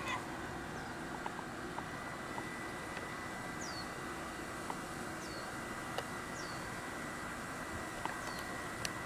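Steady outdoor background hum and hiss with a faint steady high tone, and a small bird giving four short chirps that fall in pitch, a second or two apart. A few light clicks.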